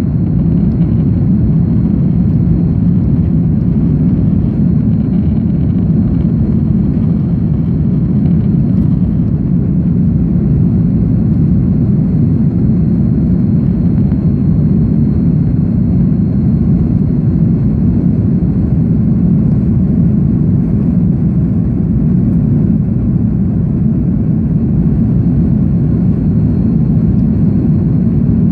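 Steady, loud rumble of an Airbus A310's jet engines and rushing air, heard inside the passenger cabin in flight, with a faint high steady whine above it.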